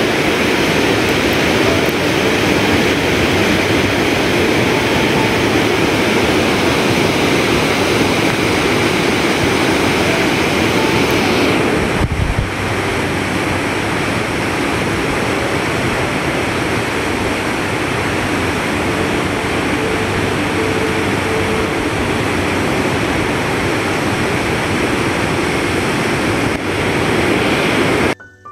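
Fast, swollen river running through rapids: a loud, steady rush of water.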